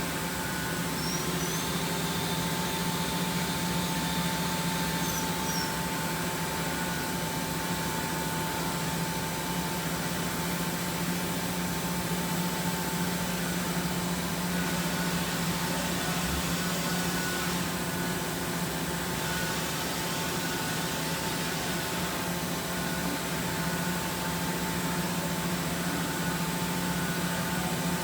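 Makino F8 vertical machining center running under power: a steady low hum with a constant faint whine over an even hiss.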